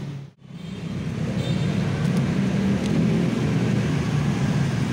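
Steady low rumble of outdoor background noise, with a brief drop-out just after the start.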